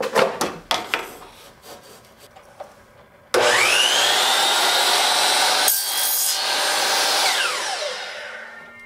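A sliding compound miter saw starts up with a rising whine, its blade cuts through a fishing rod, and the motor winds down with a falling whine near the end. Before it, a few sharp knocks as the rod is laid on the saw table.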